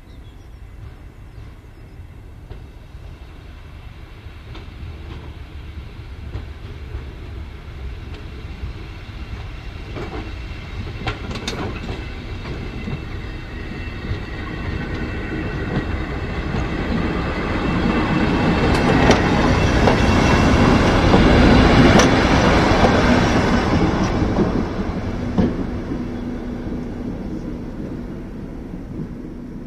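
Class 73 electro-diesel locomotive running on its diesel engine, approaching, passing close by and drawing away. It grows louder to a peak about two-thirds of the way through, then fades, with occasional sharp clanks as its wheels cross points and rail joints.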